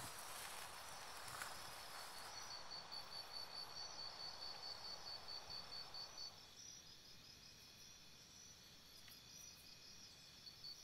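Faint insect chirping in an even, rapid pulse of several chirps a second; it stops about six seconds in and starts again near the end. Under it, a soft hiss fades out about six seconds in.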